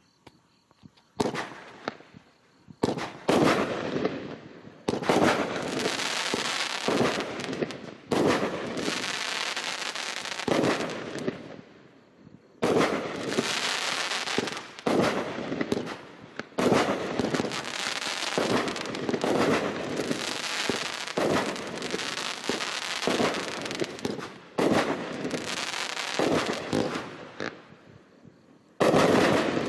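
Multi-shot consumer firework cake, EK66079 'Earthquake Shake', firing: after about a second of quiet comes a long run of sharp bangs as shots launch and burst. Each bang is followed by a few seconds of crackling, and a last loud burst comes near the end.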